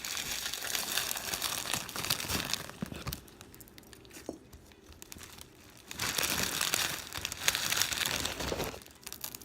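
Crunchy slime filled with beads being squeezed and kneaded by hand: a dense crunch of crackling and popping, in two bouts with a quieter stretch between them.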